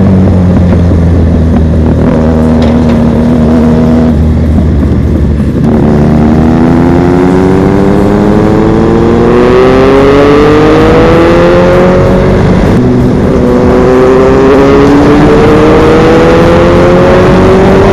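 Motorcycle engine running loud and steady, then pulling up through the revs from about six seconds in. The pitch drops at a gear change around thirteen seconds in and climbs again as it accelerates in the next gear.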